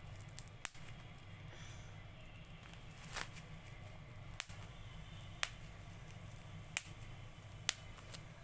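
Bubble wrap packaging popped between fingers: several sharp, separate pops, irregularly spaced about a second apart.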